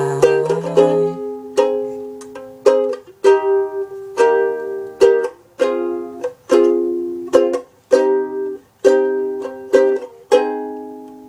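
Ukulele strummed in a slow run of separate chords as an instrumental outro, each chord ringing briefly; the last chord is left to ring and fade out near the end.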